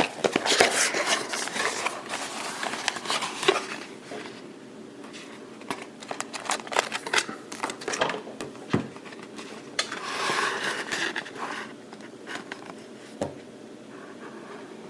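Plastic packaging being handled and torn open: crinkling and rustling for the first few seconds, scattered clicks and light knocks, then another crinkly stretch about ten seconds in.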